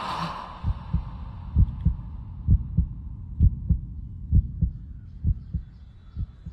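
Film heartbeat sound effect: paired low lub-dub thumps, a little under one beat a second, slowly fading. A loud swell dies away at the start.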